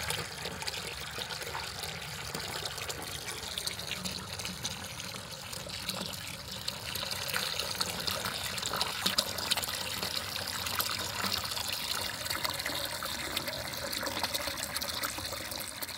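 Water running steadily from an open hose end into a part-filled plastic bucket, a constant splashing rush. The new whole-house carbon filter tank is being flushed through the hose to rinse out carbon fines.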